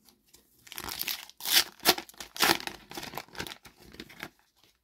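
A Panini trading-card pack being torn open and its wrapper crinkled. A run of crackling rips and crinkles starts about a second in, is loudest around the middle, and stops shortly before the end.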